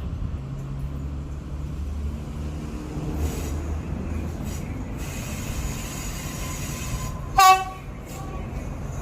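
Alsthom AHK diesel locomotive running past with a steady low engine rumble and the rolling noise of the train. It gives one short, loud horn toot about seven and a half seconds in.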